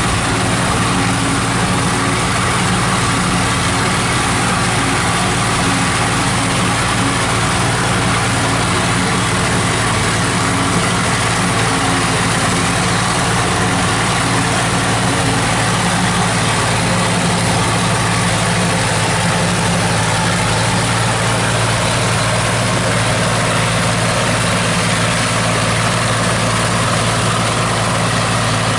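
New Idea 705 Uni System power unit with a Uni Chopper forage harvester running steadily under load while cutting and chopping corn for silage: a continuous engine drone under a dense even rush of machinery noise.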